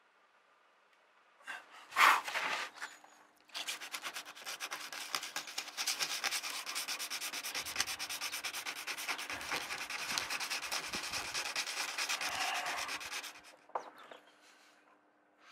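Hand sanding with folded sandpaper around a through-hull hole in a painted plywood hull, in rapid back-and-forth strokes for about ten seconds. A brief knock and clatter comes about two seconds in.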